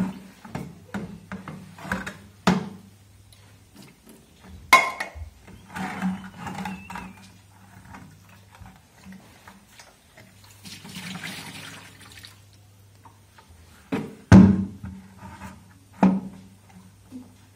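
Water sloshing in a plastic bucket while a metal mug is dipped and set down, with a series of sharp knocks and clinks of mug and bucket, the loudest about five seconds in and again near the end.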